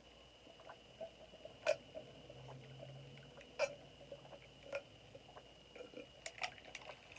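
A person swallowing ice water from a cup in long drinks: a series of faint gulping clicks, one every second or two.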